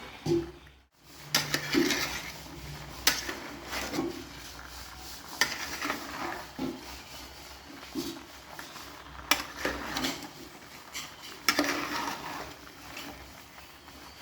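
A spoon stirring in a cooking pot, scraping and clinking against the metal every second or two.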